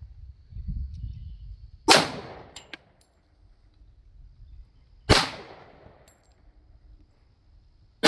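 .45 ACP pistol fired three times in slow, deliberate fire, about three seconds apart. Each report is sharp and dies away in a short echo, and the last shot falls at the very end. A couple of faint clicks follow the first shot.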